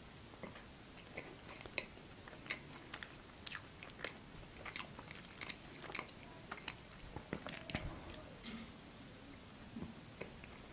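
Close-miked biting and chewing of a hand-held slice of layered coffee honey cake (medovik) with walnuts, heard as scattered soft mouth clicks and small crackles.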